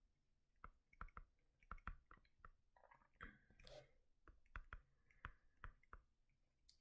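Near silence with a dozen or more faint, irregular clicks and taps, and a soft rustle lasting about a second about halfway through.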